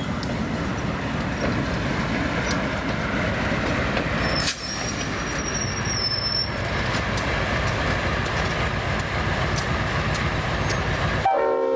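A diesel locomotive running with the train rolling along: a steady rumble with scattered clicks. Just before the end, the sound cuts out and a locomotive air horn chord starts to sound.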